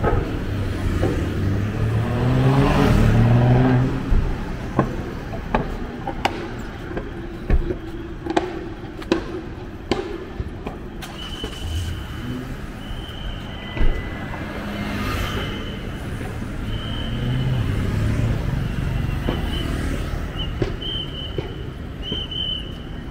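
Street traffic passing a moving camera: a motorbike engine note rises in pitch about two to four seconds in, and another engine passes later, with scattered clicks and knocks throughout. A thin high tone comes and goes in the second half.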